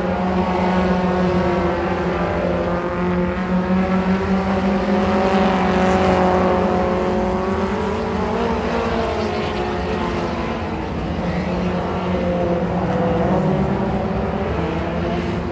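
Mini stock race cars running laps on a dirt oval: several engines at once, their tones rising and falling as they pass. The loudest point comes about six seconds in, as two cars race side by side close by.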